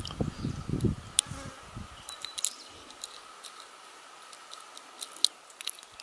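Faint, scattered sharp ticks of a steel hook pick and tension wrench working the pin stack in the small keyway of an Abus 74/40 LOTO padlock, the plug turning open near the end. A low rumble in the first second.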